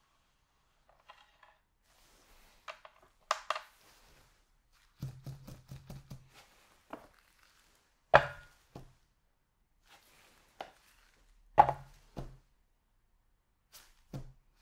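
Frozen baguette halves knocked and slid onto a ceramic plate resting on a kitchen scale: a run of light taps and scrapes, then two sharp hard knocks a few seconds apart as each baguette is set down.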